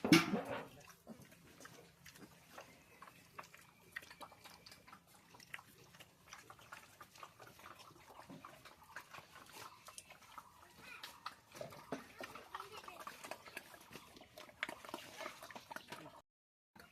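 Pigs grunting and moving about in their pen, with scattered small clicks and knocks. There is one short, loud noise at the very start, and the sound drops out briefly near the end.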